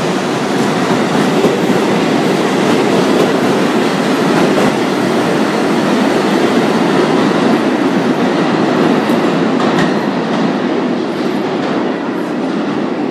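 R62A subway train pulling out of the station, its wheels and cars making a steady, loud rail noise that begins to fade near the end as the last car moves away.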